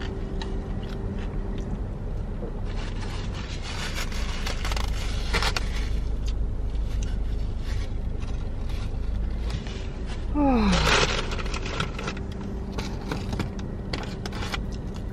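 Paper wrapping and a napkin rustling and crinkling as a sub sandwich is pulled apart and tortilla chips are handled, over a steady low hum. Just after ten seconds in a voice makes one short hum that falls in pitch.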